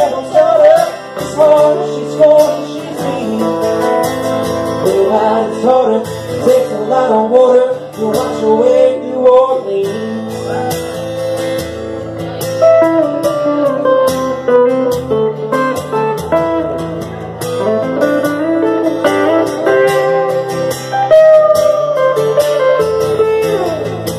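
Electric guitar playing a lead solo, with notes that bend in pitch, over a steady rhythm accompaniment: an instrumental break in a country-blues song played live.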